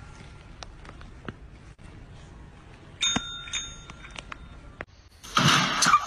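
Small green push-down call bell pressed by a kitten's paw: two quick dings about half a second apart, each ringing on. Faint ringing from an earlier ding is still fading at the start. Near the end comes a loud burst of rustling noise.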